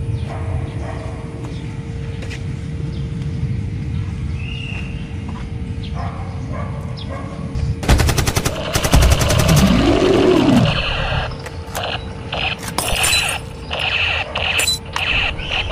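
Bursts of rapid automatic gunfire about eight seconds in and again in the last few seconds, with a single creature-like roar rising and falling in pitch between them. Before the shooting there is a low steady rumble.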